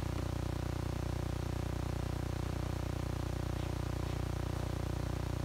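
A steady low hum with a fast, even flutter, unchanging throughout.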